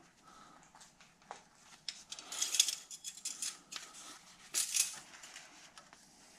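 Engine oil dipstick being handled and wiped with a shop towel: soft rustling wipes, strongest about two and a half seconds in and again near five seconds, with light clicks and scrapes of the metal dipstick in its tube.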